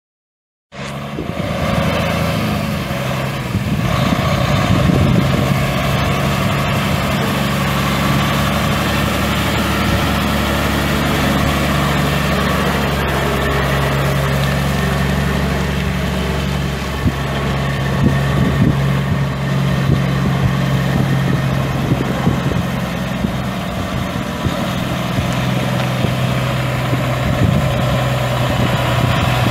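Caterpillar C12 inline-six turbo diesel in a 2004 Freightliner FLD120 SD semi truck, idling steadily.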